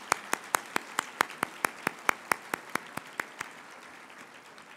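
Audience applauding, with one person's hand claps loud and close to the microphone, about four to five even claps a second. The close claps stop about three and a half seconds in, and the applause dies away near the end.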